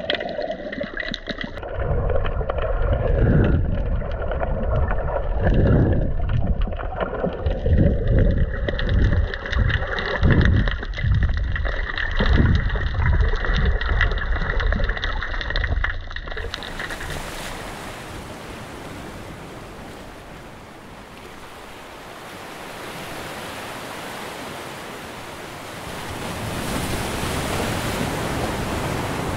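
Muffled underwater sound while snorkeling in the sea: water sloshing and bubbling with irregular low rumbles. About sixteen seconds in it cuts suddenly to an even hiss of sea waves that fades and then swells again near the end.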